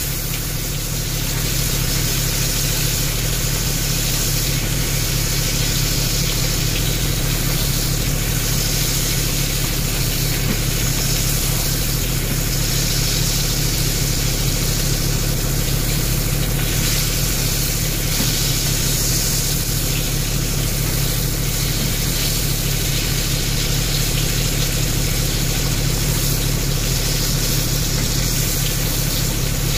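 Beef tenderloin steak frying in a pan over low heat: a steady sizzle over an even low hum.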